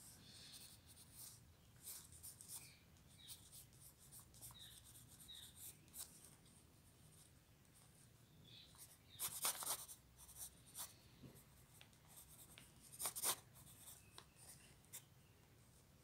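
Pencil scratching on paper in faint, quick sketching strokes, with louder runs of strokes about nine and thirteen seconds in.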